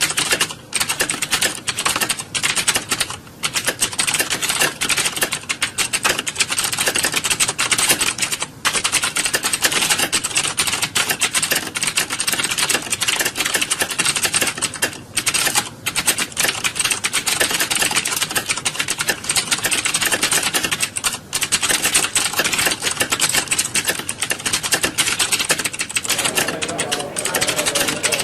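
Many computer keyboards being typed on at once, a dense, continuous clatter of keystrokes with only brief dips, the sound of a hall full of candidates sitting a typing test.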